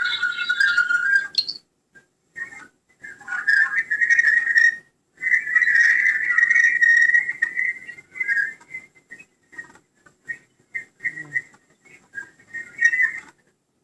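Loud, high whistling sounds in irregular bouts: a few held for a second or more, many short chirp-like pips, with brief pauses between.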